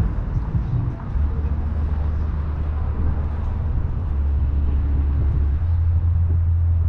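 Triumph Daytona 675R's 675 cc inline-three engine idling steadily.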